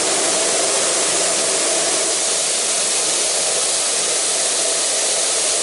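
Water jet spraying steadily as a grape press is hosed down for cleaning, an even hiss with no breaks.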